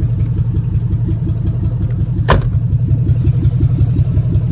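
Vehicle engine running at a steady idle, an even low throb, with one sharp click a little past two seconds in.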